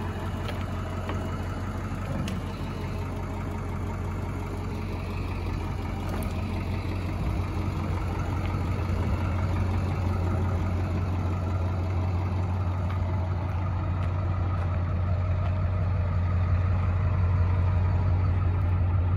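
Ford 7.3 turbo-diesel V8 of a 2001 F550 Super Duty idling steadily with a low hum, growing slightly louder toward the end.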